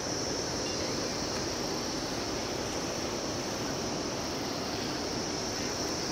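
Steady outdoor noise: wind rumbling on the microphone under an even high hiss, with no distinct events.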